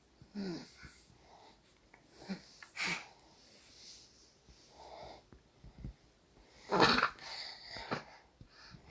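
Soft snoring: a handful of irregular breaths, the loudest about seven seconds in.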